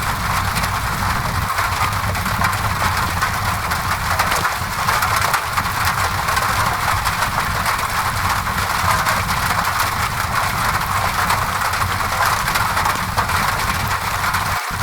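Steady rain on a window mixed with a crackling fireplace, with faint scattered crackles over an even rushing noise and a low steady rumble underneath.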